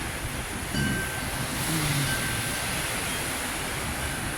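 Hurricane-force wind gusting steadily, with a rumble of wind on the microphone, while porch wind chimes ring faintly now and then, stirred more than ever by the storm.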